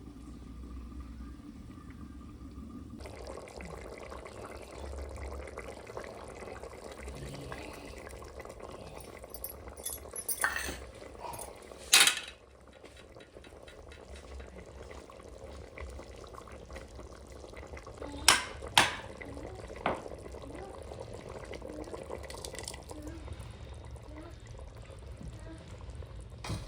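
A steady hiss of cooking in a pot starts suddenly about three seconds in. Several sharp metal clinks of a utensil against the pot come through it, the loudest about twelve seconds in.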